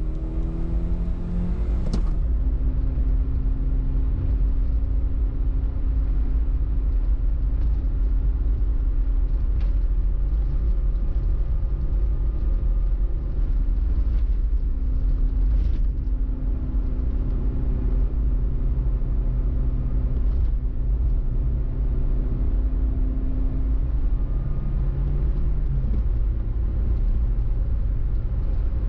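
Car engine and deep road rumble while driving. The engine note rises over the first two seconds, then drops with a gear change and holds steady at cruising speed. Near the end it climbs again and drops once more.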